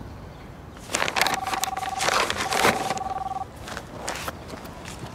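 Cell phone ringing: a steady two-note electronic ring that starts about a second in and sounds twice, each ring about a second long, over loud rustling.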